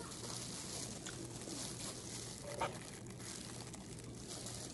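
Faint eating sounds, with light rustling and crinkling of food being handled, and one short sharp sound about two and a half seconds in.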